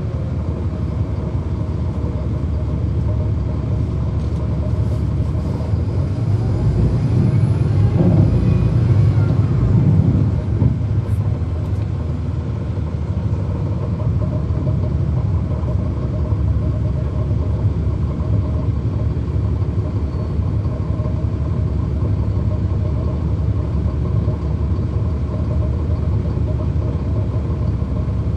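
Cummins ISL9 diesel engine of a 2009 NABI 40-SFW transit bus running under way, heard from inside the bus as a steady rumble. Between about six and ten seconds in, the engine note climbs in pitch and grows louder, then drops back suddenly and runs steadily again.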